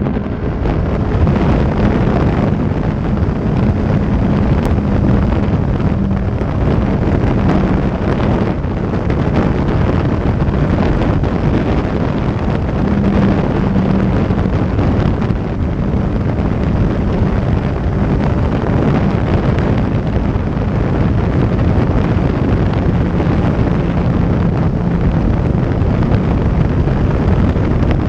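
Heavy wind rushing over the microphone on a sport motorcycle at highway speed, with the bike's engine running steadily underneath at an almost constant pitch.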